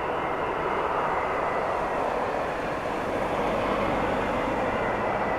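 Jet airliner engines, a steady rushing noise with a faint high whine.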